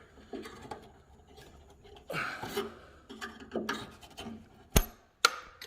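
Flat-blade screwdriver scraping and prying at the retaining clip on a hood strut's end fitting. Two sharp clicks, about half a second apart, come near the end as the clip is worked loose.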